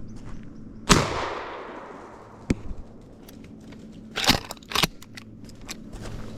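A single loud gunshot about a second in, its report echoing and dying away over a second or so, followed later by a click and two sharp knocks.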